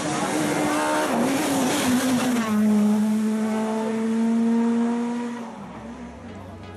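Rally car engine revving, its pitch rising and falling, then holding one steady note for about three seconds before fading away.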